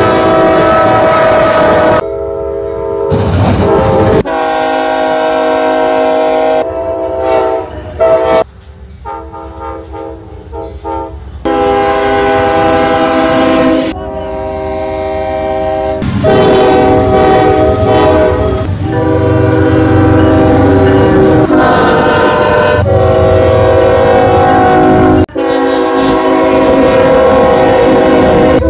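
Horns of CSX diesel freight locomotives, sounded in a string of short clips that cut abruptly one to the next, with the rumble of the passing train underneath. One stretch in the middle is quieter, with little or no horn.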